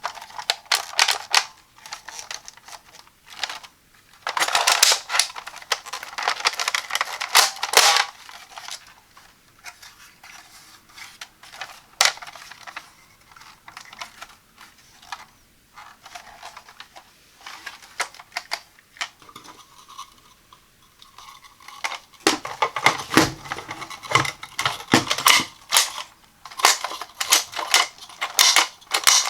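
Close, crisp handling of a toy blaster's packaging: crackly rustling, tearing and small plastic clicks in irregular bursts. The handling is busiest about four to eight seconds in and again over the last seven seconds, with sparse clicks between.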